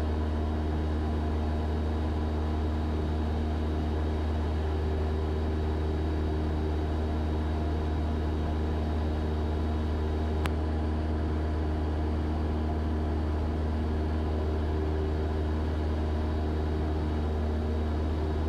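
Cessna 172 piston engine and propeller running steadily in cruise-descent, a constant low drone with a few steady tones over it. One short click about ten seconds in.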